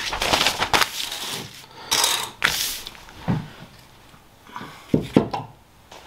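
Handling noise on a worktable: rustling and scraping, then a few sharp clicks and knocks of metal parts and a wrench being moved about on newspaper.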